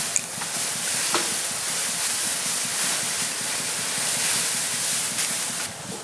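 Dry harvested rice straw rustling steadily as it is grabbed and pulled from the pile, a dense crackly hiss that drops away shortly before the end.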